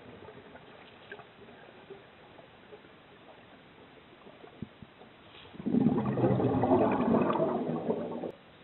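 Scuba diver breathing through a regulator underwater: a low hiss with faint clicks, then about five and a half seconds in a rush of exhaled bubbles that lasts nearly three seconds and stops suddenly.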